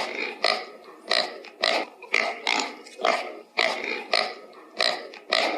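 An animal calling over and over in short, pitched, grunt-like calls, about two a second.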